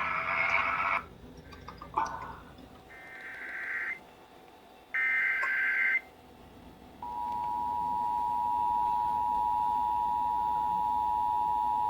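Emergency Alert System broadcast test: several short, buzzy bursts of SAME digital header data, then about seven seconds in the steady two-tone EAS attention signal (853 and 960 Hz) comes on and holds.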